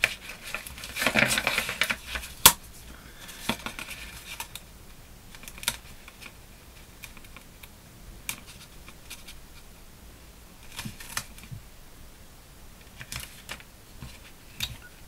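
Scored, pleated paper being handled and pressed flat on a cutting mat: a rustle of paper about a second in, then scattered sharp clicks and taps.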